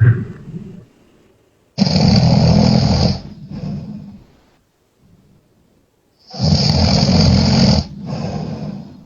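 A sleeping person snoring over a live-stream call link: two long, loud snores about four and a half seconds apart, each followed by a softer, shorter breath sound.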